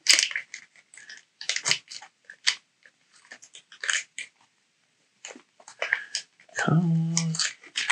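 Clear plastic trading-card pack packaging crinkling and crackling in the hands as it is worked open, in irregular short crackles. A voice comes in near the end.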